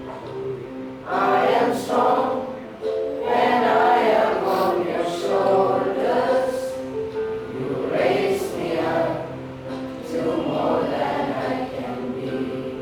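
A class of school students singing together as a choir, with held steady notes underneath the voices.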